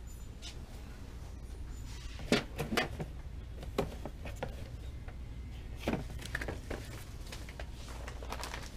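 Scattered clacks and knocks of objects being handled, the sharpest about two and a half seconds in and others around four and six seconds, over a steady low hum.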